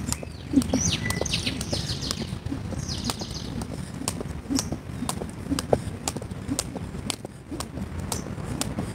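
Skipping rope in steady rhythm: the rope slapping the ground and the jumper's feet landing, about two sharp slaps a second. Birds chirp during the first few seconds.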